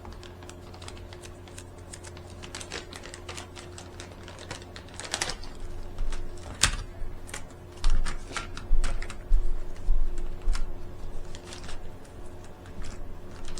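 Irregular small plastic clicks and taps, with several dull thumps in the middle, from 1S batteries and a small charger being handled. A steady low hum runs underneath.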